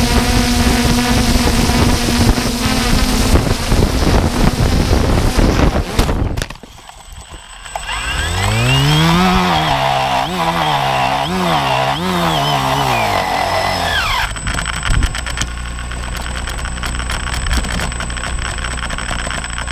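DJI Phantom 2 quadcopter's motors and propellers whining, mixed with rushing noise. About six seconds in the sound drops briefly, then a pitched whine rises and wavers up and down for several seconds before steady noise returns.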